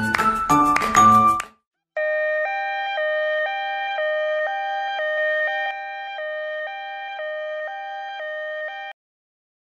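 Music cuts off about a second and a half in. After a short gap, a two-tone ambulance siren alternates between a high and a low note about twice a second for about seven seconds, slowly getting quieter, and stops just before the end.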